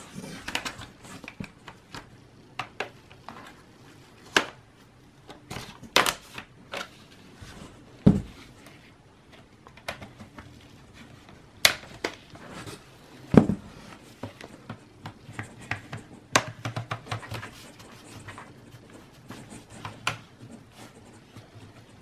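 Plastic snap-in clips of a ThinkPad E480 laptop's bottom cover clicking and snapping loose as a plastic card is worked around the seam, with irregular sharp clicks and a couple of louder snaps carrying a dull knock.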